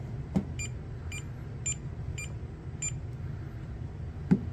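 FNIRSI S1 multimeter's piezo beeper giving five short beeps, about two a second, in non-contact voltage mode as it is held against live mains cables, then falling silent. This is the meter's NCV alarm picking up the mains voltage only intermittently, which the reviewer calls not doing a great job. A couple of handling knocks, the louder one near the end, over a steady low hum.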